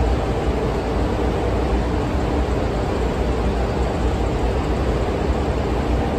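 Steady, loud drone of ship's engine-room machinery: a deep hum under a broad rumble.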